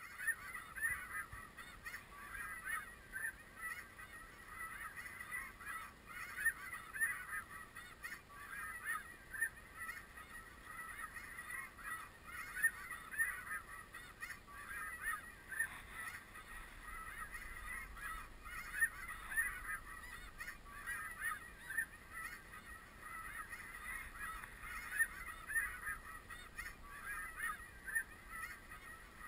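Snow geese calling: a dense chorus of short, high calls, many overlapping, with no pause.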